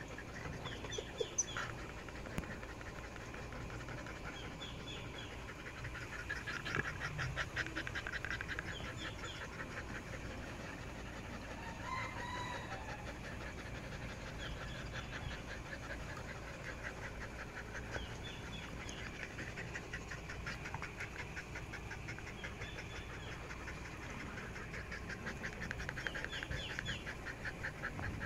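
Chow chow puppies panting after play, in rhythmic stretches, with short high calls of birds repeating every few seconds in the background.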